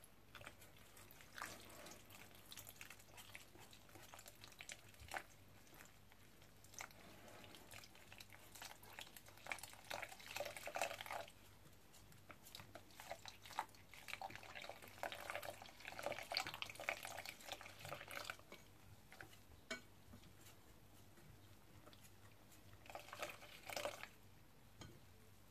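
Wire whisk stirring flour and water into a thin rice-flour batter in a bowl while water is poured in slowly from a measuring jug. Faint, coming and going in bouts, with scattered small clicks.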